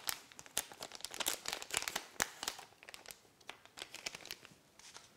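Silver metallised anti-static bag crinkling and crackling as hands open and handle it to get at a small circuit board. The crinkles are dense at first and thin out toward the end.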